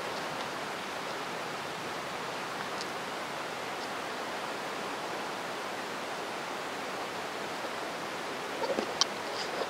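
Heavy rain pouring down on open ground, an even, steady hiss. A few short knocks sound close together near the end.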